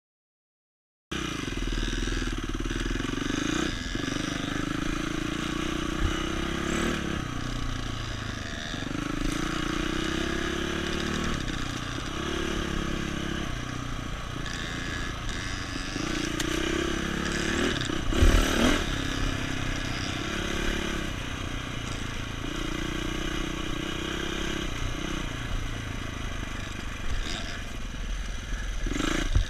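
Dirt bike engine heard from on the bike, revving up and falling back again and again as it rides a rough dirt trail. The sound cuts in abruptly about a second in, and there is a sharp knock about 18 seconds in.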